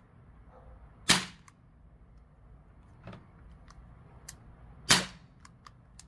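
Daisy Powerline 415 CO2 BB pistol firing two sharp shots about four seconds apart, with a fainter snap between them.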